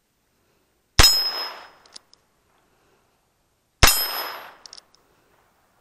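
Two shots from a Heritage Rough Rider single-action .22 LR revolver, about three seconds apart. Each is a sharp crack that rings out and fades over under a second, and a few faint clicks follow each one.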